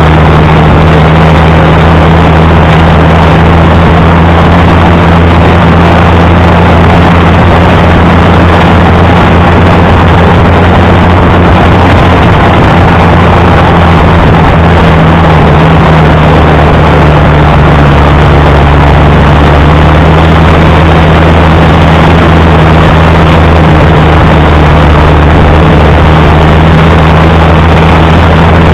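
Allis-Chalmers D19 tractor engine running steadily, loud and close.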